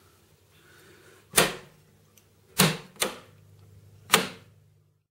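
Seep PM1 solenoid point motors snapping over as two model railway points are thrown together from one switch: four sharp clicks, the middle two close together, the points throwing firmly. A faint low hum lies underneath and cuts off just before the end.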